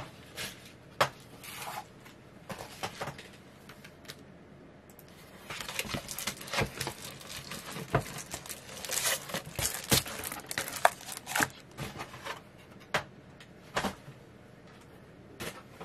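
Packaging rustling and crinkling as it is handled and opened, with scattered light clicks and knocks. The handling is busiest from about five to twelve seconds in.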